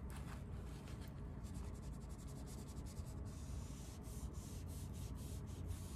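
Faint scuffing of a paper towel rubbed across a glossy painted surface in small quick strokes, wiping away stray ink left by a temporary tattoo, over a low steady hum.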